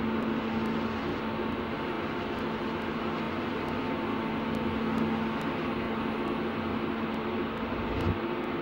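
Steady hum of an elevator car riding between floors, heard from inside the car, with a held low tone under it. A soft thump near the end.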